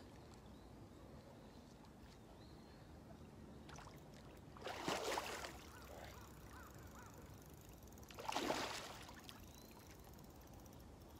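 A large hooked fish splashing and thrashing at the water's surface while it is being played close to the bank: two bursts of splashing, the first just before the middle and the second a few seconds later.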